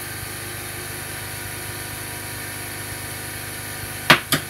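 An air compressor runs steadily with an even drone. Near the end come two sharp clacks about a quarter second apart.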